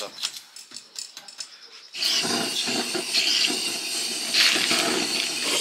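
Charcoal barbecue fire: a few light clicks and crackles, then about two seconds in a loud, steady hiss starts abruptly as the coals are fired up to burn hard.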